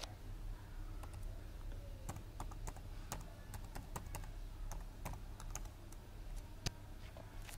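Typing on a computer keyboard: a string of irregular key clicks as a file name is typed, with one sharper click near the end.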